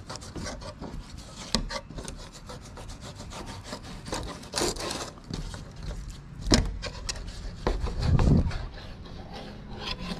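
Fillet knife scraping and sawing against a plastic cutting board as it skins a bonnethead shark fillet: a run of short rasping strokes and small ticks of the blade, with a sharper knock about two thirds of the way through and a duller low bump shortly after.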